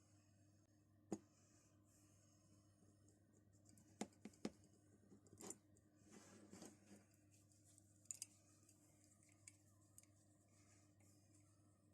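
Near silence: faint room tone with a low steady hum and a few scattered soft clicks and taps, a cluster of them around the middle.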